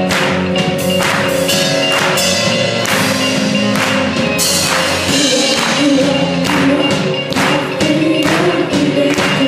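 Live worship band playing, with a drum kit keeping a steady beat of about two hits a second under keyboard and guitars, and a female lead singer with backing singers.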